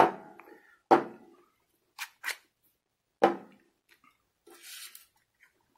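Brass cover sleeves and parts of a smart lock cylinder knocking on a wooden table as the lock is taken apart. There are three sharp knocks, each with a short ring: one at the start, one about a second in and one a little past three seconds. Two quick light clicks come around two seconds, and a brief rustle follows near the end.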